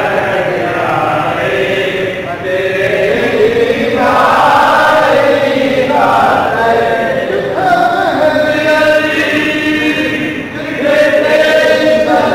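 A group of men's voices chanting a devotional recitation together, holding long drawn-out phrases, with short breaks between phrases about two seconds in and again near the end.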